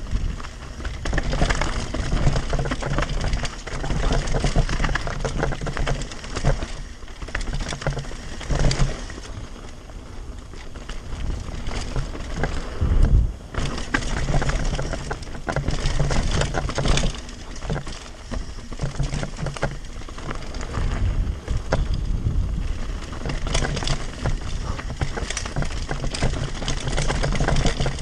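Devinci Spartan carbon mountain bike descending a rocky dirt trail at speed. The tyres crunch over gravel and stones and the bike rattles over bumps, with a low rumble throughout and sharper knocks about 9 and 13 seconds in.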